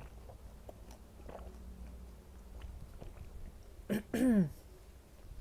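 A mouthful of golgappa (a crisp, hollow pani puri filled with spiced water) being chewed with the mouth closed, in soft, irregular chews. About four seconds in comes a short hum and then a longer 'mmm' that falls in pitch, made through the full mouth.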